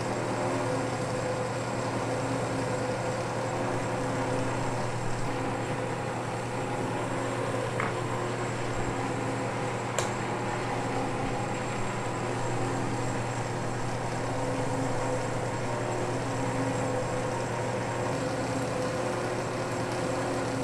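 South Bend 10K metal lathe running steadily, its motor and drive giving a constant hum as the chuck spins. There is a brief sharp tick about halfway through.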